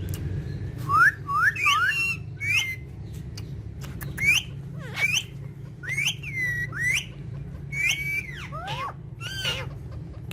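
Pet parrot giving about a dozen short whistled calls that glide up and down in pitch, in small clusters of two or three, over a steady low hum.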